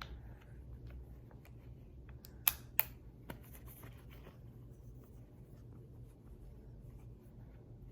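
Faint scratching and handling of metal revolver parts and cleaning tools, with two sharp clicks about two and a half seconds in and a lighter one just after.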